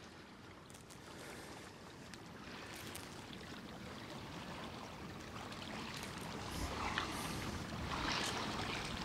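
Water lapping and trickling against the hull of a kayak moving slowly across a lake, a soft steady wash that slowly grows louder, with a low rumble coming in about two-thirds of the way through.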